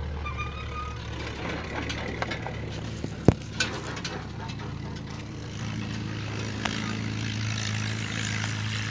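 Car engine running with a steady low hum as the car pulls away towing a small loaded utility trailer, with a single sharp knock about three seconds in.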